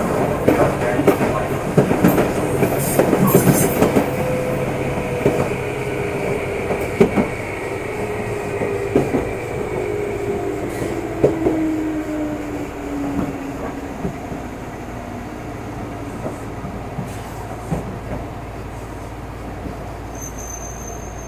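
Meitetsu 6500 series electric train's traction motors whining as the train slows. The whine falls steadily in pitch and fades, while the wheels click over rail joints, as the train brakes toward a stop.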